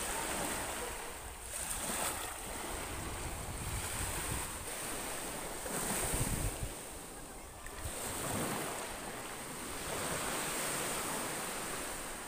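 Small waves breaking and washing up onto a sandy beach, the surf swelling and easing every few seconds, with wind rumbling on the microphone.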